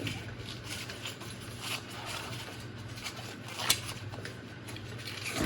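Bicycle tire and inner tube being handled off the rim: scattered rubbing and scraping noises with one sharp click about two-thirds of the way through, over a steady low hum.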